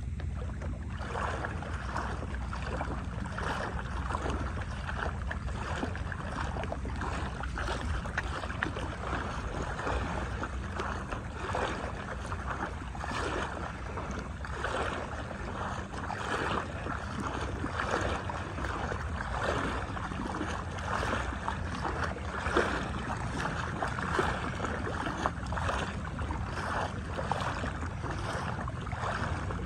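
Shallow seawater sloshing and lapping in irregular swells about once a second, over a steady low wind rumble on the microphone.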